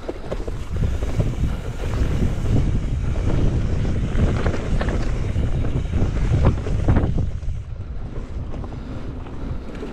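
Wind buffeting a GoPro's microphone as a mountain bike rolls down a dirt singletrack, mixed with tyre rumble and short knocks and rattles from the bike over bumps. The rush eases somewhat about three-quarters of the way through.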